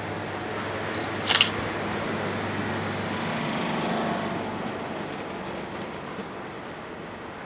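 A single-lens reflex camera shutter fires once, a short sharp click about a second in, over the steady rumble of the approaching train hauled by three GM class 34 diesel locomotives.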